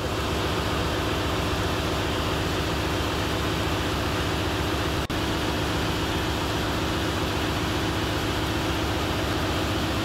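Ship's engine-room machinery running: a loud, steady hum and hiss that does not change, cut by a momentary gap about five seconds in.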